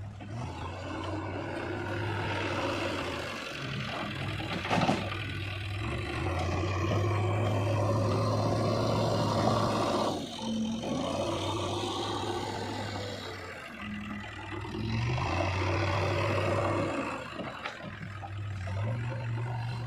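Diesel engine of a JCB 3DX backhoe loader running and revving up and down under hydraulic load, louder twice as it works. There is a sharp knock about five seconds in.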